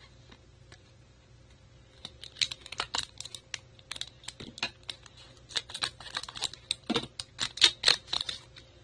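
A stack of trading cards being handled and shuffled by hand: a quick, irregular run of sharp clicks and rustles that starts about two seconds in and stops shortly before the end.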